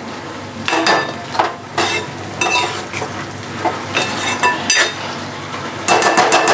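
Steel spoon stirring grated carrots in a stainless steel pan, scraping and clinking against the metal at irregular strokes, with a busier flurry of strokes near the end. Under it, a steady sizzle of the carrots cooking in milk that has nearly reduced.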